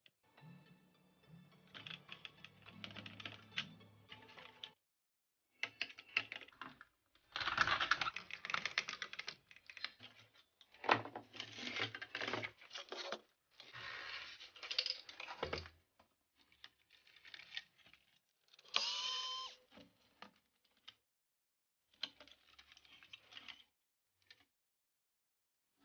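Plastic parts of a Sony MHC-RX99 cassette mechanism being handled and taken apart: irregular clicks, rattles and scrapes in short bursts, with a brief squeak about two-thirds of the way through.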